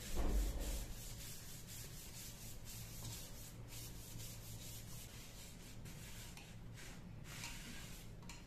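A paper towel wet with denatured alcohol rubbed by hand over the surface of a segmented wooden vase: a run of soft, hissing wiping strokes, cleaning the wood before finishing. A low thump sounds right at the start.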